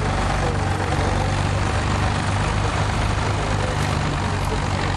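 Ford 4000 tractor engine running steadily at an even speed.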